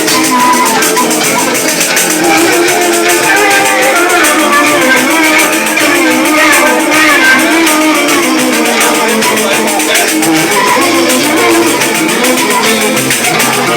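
Live band music: a pife (cane fife) playing a quick, wandering melody over lower sustained notes, with percussion and a steady shaker rhythm.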